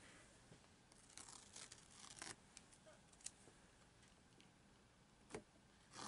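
Masking tape being peeled off watercolour paper: faint tearing rustles in short spells, with a few small ticks.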